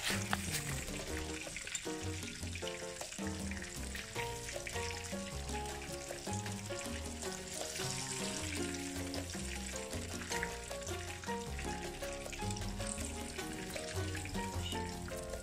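Chip-coated chicken deep-frying in hot oil: a steady sizzle with fine crackling. Background music with a steady bass line plays throughout.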